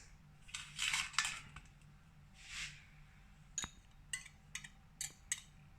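Egg yolks being tipped into a mixing bowl: faint soft scraping, then about five light, separate clinks of a utensil against the bowl in the second half.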